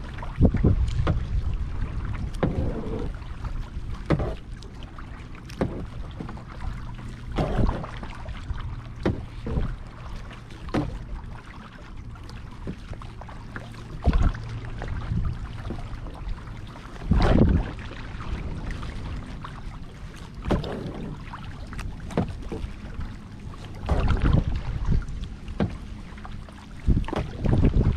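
Kayak paddle strokes in lake water: irregular splashes and drips a second or a few seconds apart, several louder than the rest, over a steady low rumble.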